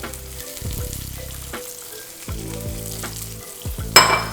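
Chicken thighs frying skin-side down in sesame oil, a steady sizzle in the pan. A sharp, ringing clink near the end.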